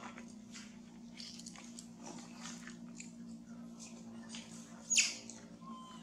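A macaque eating, with crisp little crunches and chewing clicks scattered through, over a steady low hum. One louder, sharper click comes about five seconds in.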